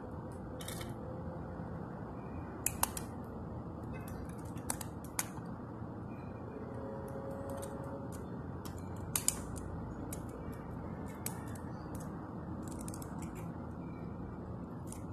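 Scattered small clicks and creaks of a First Gear die-cast toy garbage truck's side-loader arm and toy cart being worked by hand, the loudest a pair of clicks about three seconds in and another pair about nine seconds in, over a steady background hiss.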